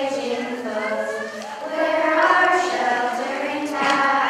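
A group of children singing together, voices holding long notes and stepping from pitch to pitch.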